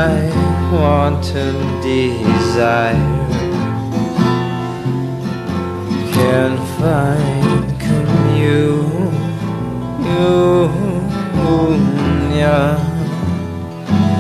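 Music: a song built on acoustic guitar, with a steady bass line and a melody that bends and wavers above it.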